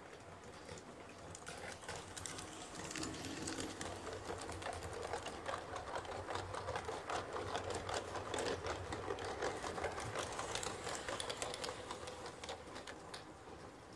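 LGB garden-scale model train of ten passenger coaches passing close by on brass track: a rapid clicking clatter of the wheels over rail joints and points, growing louder toward the middle and fading near the end as the train moves away.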